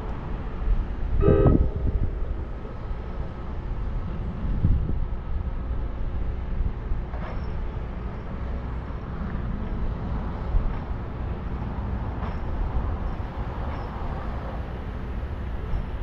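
Outdoor rumble with wind on the microphone, and a brief pitched toot about a second and a half in.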